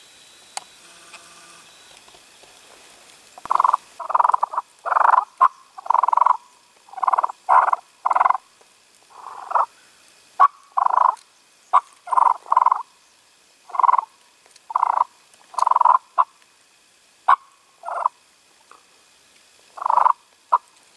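Hunter's turkey call sounding a long run of loud, short hen-turkey yelps in uneven groups, with a few sharp clucks among them, starting a few seconds in. It is calling to a gobbler that keeps answering from the woods.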